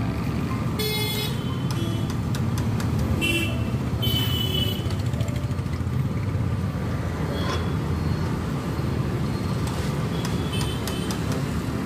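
Steady low street-traffic rumble with short vehicle horn toots about a second in, around three to four seconds in and near the end, and scattered light clinks of a metal skimmer against the iron kadhai of frying oil.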